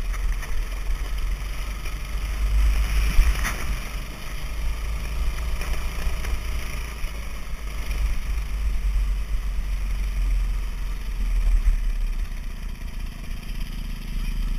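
Ride on a dirt bike along a dirt trail: wind buffeting the microphone in a heavy rumble, over the motorcycle's engine running. A single knock about three and a half seconds in.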